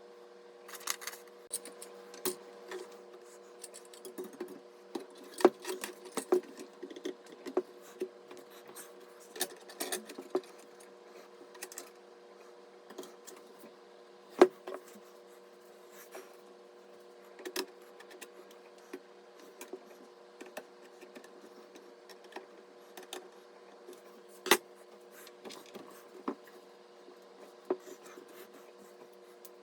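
Irregular small clicks, taps and knocks of computer hardware being handled and fitted, over a steady low hum.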